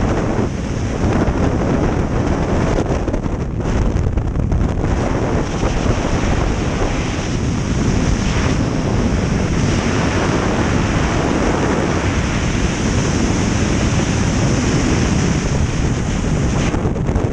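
Loud, steady wind rushing over a skydiver's camera microphone during the jump.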